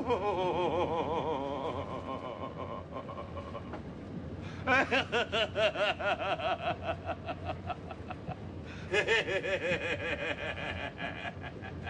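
A man laughing heartily in three bouts of rapid, evenly pulsed ha-ha-ha laughter: one at the start, one about five seconds in and one about nine seconds in.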